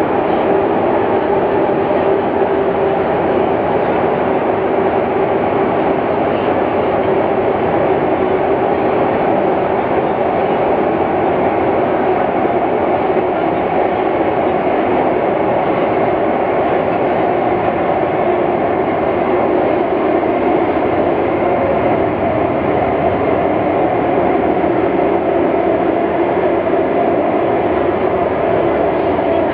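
Metro train running, heard from inside the passenger carriage: a steady rumble of wheels on rail with humming tones that drift slightly in pitch.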